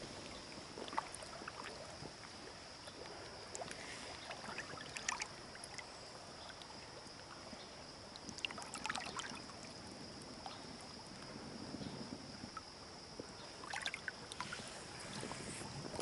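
Faint shallow river water trickling around hands holding a king salmon in the current, with small splashes and drips now and then under a steady faint high hiss.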